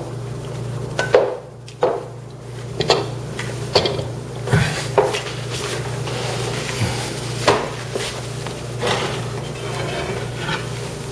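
A series of separate knocks and clatters as glass and tools are picked up and set down on a wooden tabletop, over a steady low hum.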